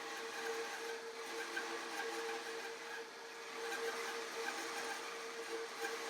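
Grizzly bandsaw running through a resaw cut in cherry, with a shop vacuum running alongside for dust collection: a steady machine hum with a constant whine over an even hiss.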